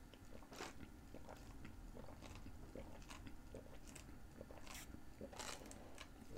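Faint mouth sounds of drinking iced tea through a straw: quiet sips and swallows with scattered small clicks.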